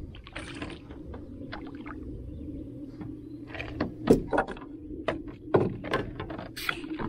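Irregular knocks and clatter of things being moved about in a canoe, with the loudest knock about four seconds in, over a steady low rumble.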